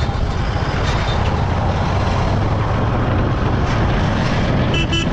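Royal Enfield Hunter 350's single-cylinder engine running at riding speed, under a loud steady rush of wind and road noise on the bike-mounted microphone. A brief high-pitched tone comes near the end.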